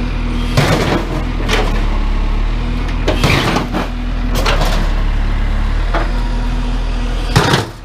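Backhoe's diesel engine running steadily under throttle, with several sudden clanks and crunches as the bucket works scrap washing machines.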